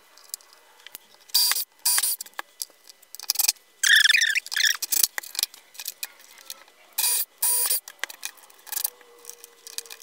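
Short, irregular bursts of workshop handling noise as a bilge pump and float switch are marked out, set down and fixed to a plywood base, with a brief squeak about four seconds in.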